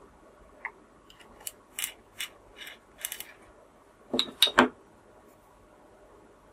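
A terracotta coloured pencil being sharpened in a pencil sharpener: a run of short scraping strokes, then a few louder knocks about four seconds in.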